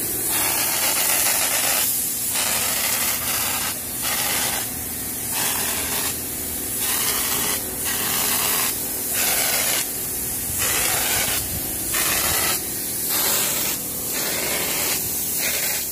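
Compressed-air texture spray gun spraying textured paint onto a wall in short bursts: a hiss that stops and starts roughly every second.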